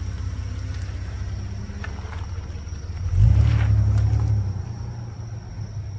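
Jeep Grand Cherokee WJ's 4.0-litre straight-six engine pulling away, with a louder surge of acceleration about three seconds in, then fading as the Jeep drives off.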